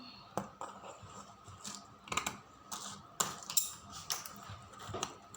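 A cardboard box and its packaging being handled and opened, with irregular clicks, scrapes and rustles.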